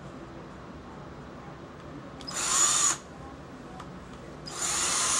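Electric drill running in two short bursts, a brief one and then a longer one starting near the end, driving screws into the model tier.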